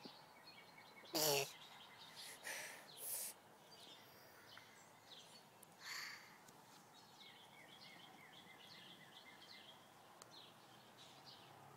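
Small birds chirping, many short, quick calls throughout. A toddler gives one short wavering vocal sound about a second in, and a few brief soft rustles come and go.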